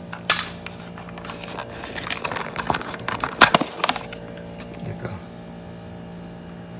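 Plastic clicks and rattles from a power strip and a three-pin plug on a cord being handled: one sharp click near the start, then a cluster of clicks and knocks in the middle.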